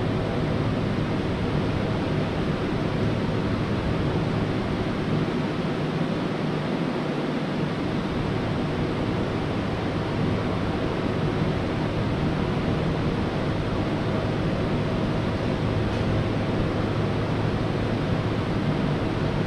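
Oxy-acetylene cutting torch flame running steadily, a continuous rushing hiss, as it heats a pressed-on transmission gear so that it will come free from its shaft.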